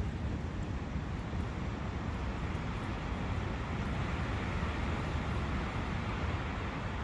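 Steady rushing of a brook's flowing water, an even, unbroken noise.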